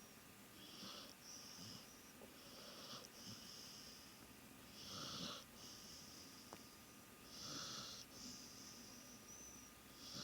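A sleeping dog snoring faintly, one hissing breath about every two and a half seconds.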